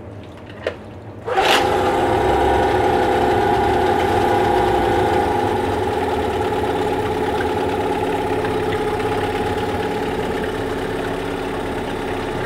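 SEA-PRO T9.9S outboard motor starting about a second in, then idling steadily. The idle is normal, the sign that the overheating and power-loss repair has worked.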